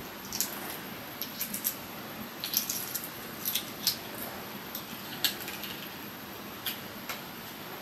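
Irregular light clicks and clinks, a dozen or so, over a steady background hiss.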